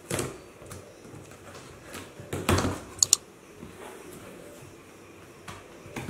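A handheld blade cutting the packing tape on a corrugated cardboard box: short scraping strokes with cardboard rustle, the longest about two and a half seconds in, followed by two quick sharp clicks.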